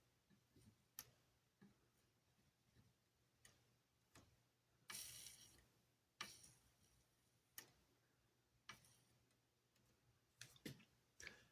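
Near silence: faint, irregular small clicks and taps of small hand tools at work on a circuit board during soldering, about a dozen spread out, with one longer scrape about five seconds in, over a faint steady low hum.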